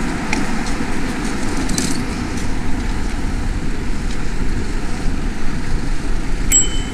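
Bicycle ride through city traffic heard from a chest-mounted camera: a steady rumble of wind and road noise with passing traffic. A brief high ring comes in near the end.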